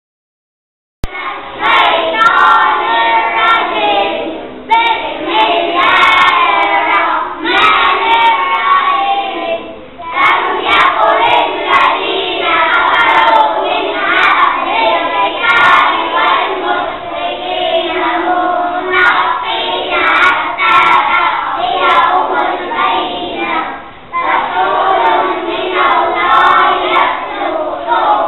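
A group of young boys singing loudly together in unison, with no instruments. The singing starts about a second in.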